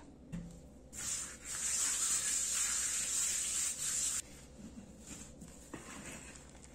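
A hand spreading flour over a silicone baking mat. The dry, swishing hiss starts about a second in and cuts off sharply a little after four seconds.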